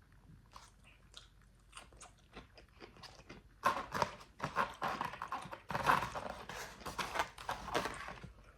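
A person chewing crispy fried chicken, quiet and sparse at first, then loud, dense crunching bites from about four seconds in until near the end.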